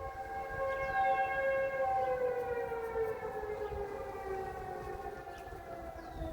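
Tornado warning siren sounding during its monthly test: a steady tone that, from about two seconds in, slowly falls in pitch as it winds down.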